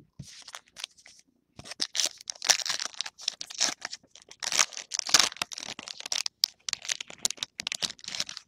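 A baseball-card pack wrapper being torn open along its crimped seal and crinkled in the hands, a dense run of crackling rustles starting about a second and a half in, after a few light clicks of cards being handled.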